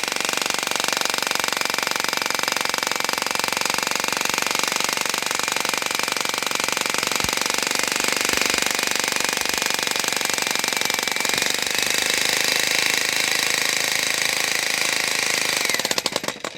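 Jackhammer with a square-pointed chisel breaking up a concrete pool floor: continuous rapid hammering with a steady high whine. It stops abruptly near the end, at a point where the chisel may have jammed in the concrete.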